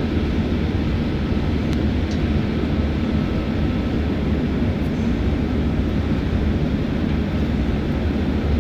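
Steady low drone of a tanker's running machinery in the pump room, an even hum with no change. A couple of faint clicks come about two seconds in.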